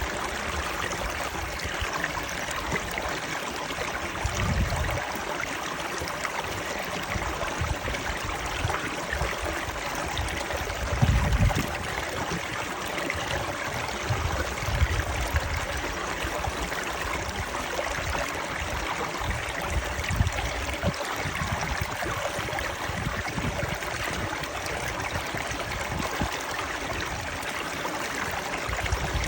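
Stream water running steadily, with a few short low rumbles underneath, the strongest about eleven seconds in.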